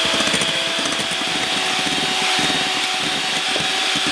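Electric hand mixer running at a steady high speed with a constant motor whine, its beaters whipping eggs as sugar is gradually added, beating toward a stiff, shiny batter.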